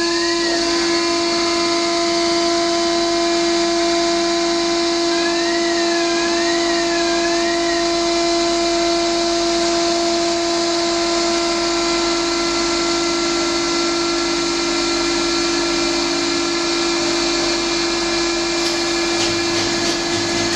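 Ship's engine room humming steadily with a constant whine, the main diesel not yet started. A warbling electronic tone swings up and down briefly at the start and again from about five to eight seconds in.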